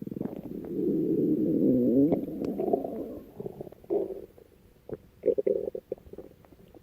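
Stomach growling: a long gurgling rumble that wavers up and down in pitch for about three seconds, then two short gurgles about four and five and a half seconds in.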